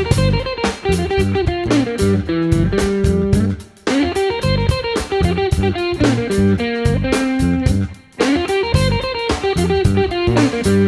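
Background music played on guitar: plucked notes over a bass line in a steady rhythm, breaking off briefly twice, about four seconds apart.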